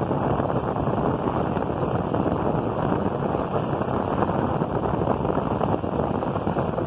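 Wind buffeting the microphone from the front of a moving open boat: a steady, dense rushing noise with no clear engine tone.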